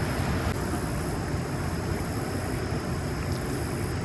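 Steady wind rumbling on the microphone, with an even outdoor rushing noise behind it.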